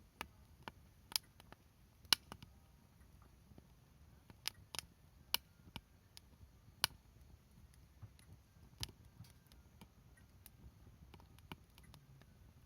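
Wood fire crackling, with irregular sharp pops and snaps, a few of them loud, over a faint low background.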